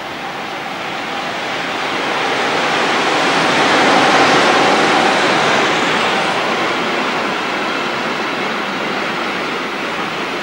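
Electric locomotive and freight train passing close by, a steady rushing rumble of wheels and running gear that swells to its loudest about four seconds in as the locomotive goes past, then eases slightly as the wagons roll by.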